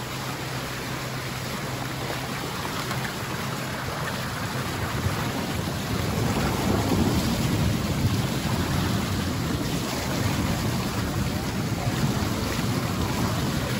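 Boat under way at low speed: a steady rush of water along the hull with wind on the microphone and a low engine hum, growing a little louder about six seconds in.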